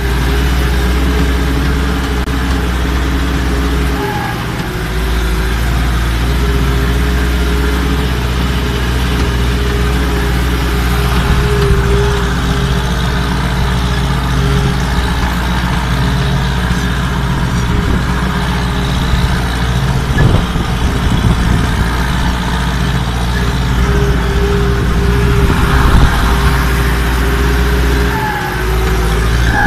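Ursus 1014 tractor's diesel engine running steadily under load while pulling a field cultivator, heard from the cab. The engine note dips briefly twice, and a few knocks and rattles come in the second half.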